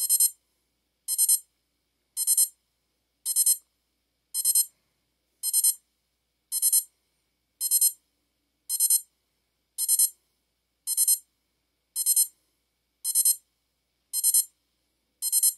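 Sharp digital alarm clock's alarm beeping: short bursts of rapid beeps repeating about once a second. It is not very loud and does not get louder as it goes on.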